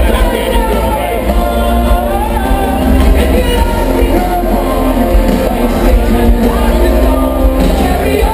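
Live amplified band music with a lead singer, loud and bass-heavy.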